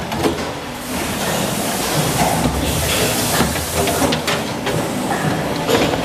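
Die-casting machine running with a steady mechanical din, scattered metal clanks and a hiss as mist comes off the hot die, the hiss strongest about halfway through.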